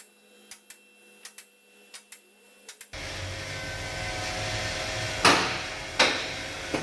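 A car being raised on a floor jack: light regular clicks, then after a sudden change a steady noisy hum with two sharp clunks about a second apart near the end.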